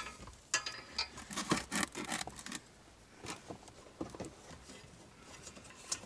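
Light clicks and rubbing from hands working a foam-backed steel bracket loose beneath a steering column. The sounds cluster in the first couple of seconds, thin out after, and end with a sharp click near the end.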